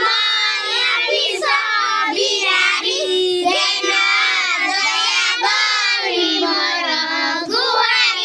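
A group of young children singing a prayer together, phrase after phrase with short breaks between.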